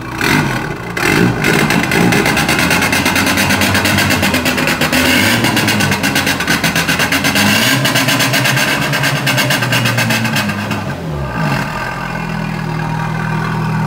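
Tofaş SLX car engine being revved: the revs climb and are held high with rapid even firing pulses, drop back about eleven seconds in, and settle to a steady idle near the end.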